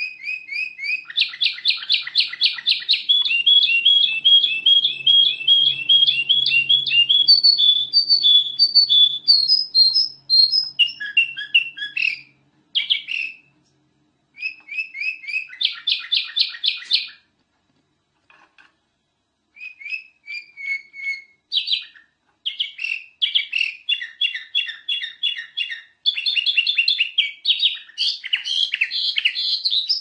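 Black-crested bulbul (kutilang emas) singing a fast, chattering song: long runs of rapid repeated chirping notes, with a few short pauses through the middle.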